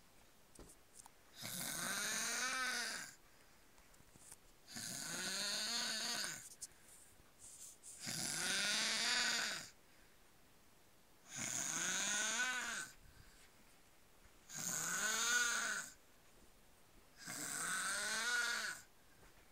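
A sleeping man snoring: six long snores, roughly one every three seconds, each a pitched rasp whose pitch rises and then falls, with quiet gaps between.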